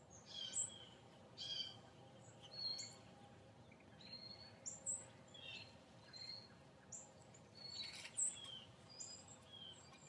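Faint songbird chirps: short, high call notes, several sliding down in pitch, about one a second.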